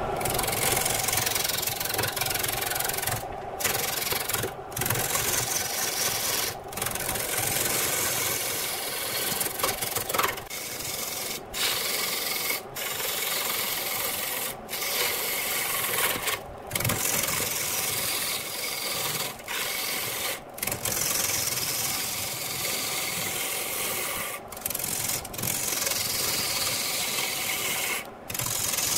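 Turning tool cutting into a large log blank spinning on a wood lathe: a continuous rough shearing noise as shavings fly off, with brief gaps every few seconds.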